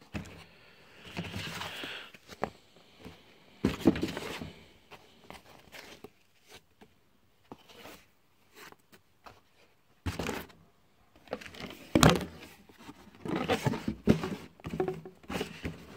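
Cardboard boxes and packing foam being handled: rustling and crinkling with scattered knocks, and sharper thumps about four and twelve seconds in.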